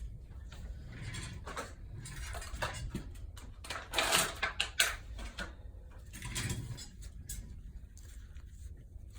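Handling noise in a small room: scattered light clicks and rustles, with a loud rustling cluster about four to five seconds in.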